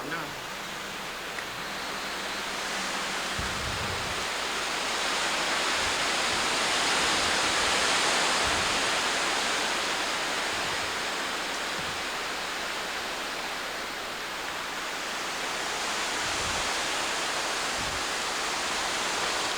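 Hurricane winds rushing through trees in gusts: the rush swells to its loudest about halfway through, eases, then picks up again near the end. A few low thumps come from the wind hitting the microphone.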